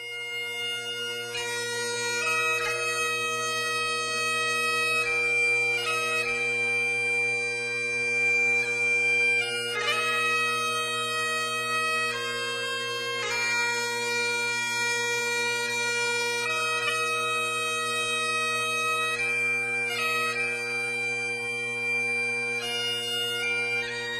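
Bagpipes playing a slow melody over steady, unchanging drones, with melody notes held for one to three seconds each.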